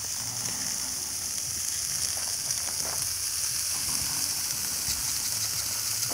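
Ribeye steaks and chicken sizzling on a charcoal grill grate: a steady hiss with faint crackles.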